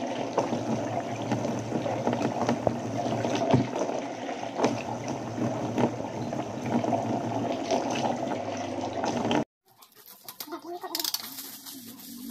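Water poured from a plastic dipper over long wet hair, splashing steadily into a bathtub as the hair is rinsed. It cuts off suddenly about three-quarters of the way in, leaving only faint room sound.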